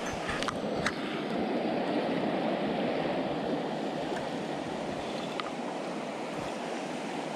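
Trout river flowing steadily, with a few faint clicks about half a second in, near one second and about five seconds in.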